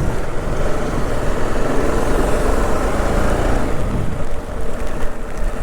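Motorcycle running on the move, a steady engine and road rumble that swells slightly in the middle.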